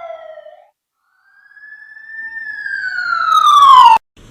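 Emergency vehicle siren wailing. A falling tone dies away, and after a short gap a new wail rises, peaks and falls while growing loud, then cuts off abruptly near the end.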